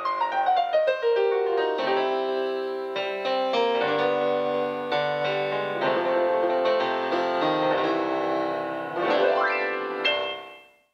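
Instrumental intro music for a channel logo: a melody of sustained notes that fades out near the end.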